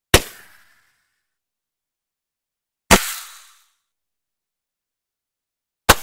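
Roman candle firing: three sharp pops about three seconds apart, each trailing off briefly.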